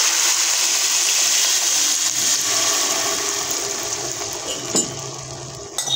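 Milk, sugar and egg mixture poured into a karahi of hot ghee-roasted semolina, a loud rushing splash and hiss that slowly dies away while it is stirred with a wooden spoon. A single light knock of the spoon comes near the end.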